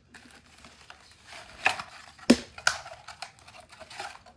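Smoke alarm packaging being handled and opened to take the contents out: rustling and crinkling with a few sharp clicks and taps, the loudest a little over two seconds in.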